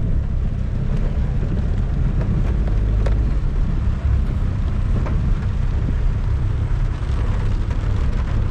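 A vehicle being driven on a rain-soaked road: a steady low rumble with an even hiss above it.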